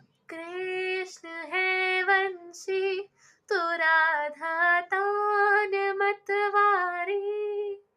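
A girl singing solo with no accompaniment, one voice holding sustained notes in phrases broken by brief pauses for breath.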